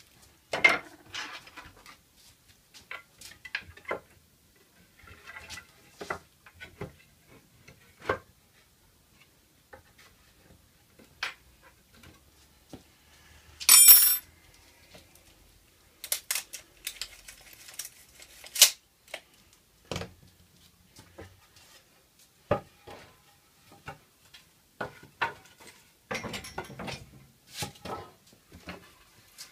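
Pallet-wood boards being handled and shifted about on a workbench: scattered knocks and clatters of wood. About halfway through comes a loud, brief ringing clatter, followed by a few seconds of scraping as boards slide.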